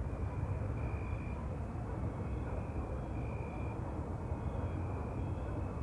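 Outdoor night ambience: a steady low rumble with a high, thin chirping call repeating in half-second trills about once a second.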